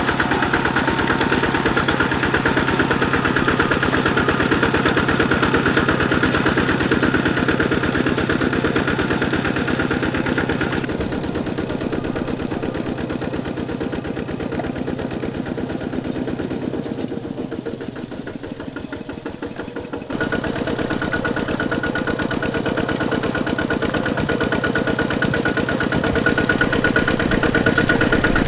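Single-cylinder diesel engine of a two-wheel walking tractor running steadily under load, pulling a disc plow through wet paddy soil. It drops quieter for several seconds in the middle, then comes back louder abruptly.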